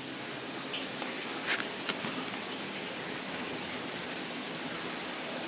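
Steady background hiss, with a few faint rustles and ticks about one and a half and two seconds in.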